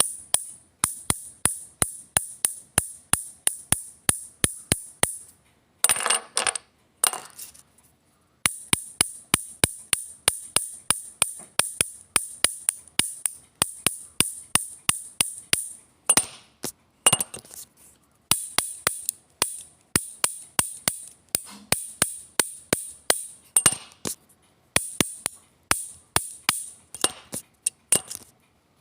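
Plastic optical pen clicked over and over, about three sharp clicks a second, broken a few times by short scraping sounds.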